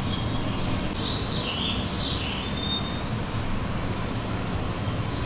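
Steady room noise, the hiss and hum of air conditioning, with faint high bird-like chirps about one to two and a half seconds in.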